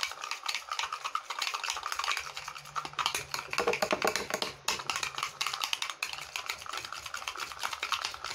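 A spoon stirring egg yolk and instant coffee in a small bowl, with rapid clicks and scrapes against the bowl's sides.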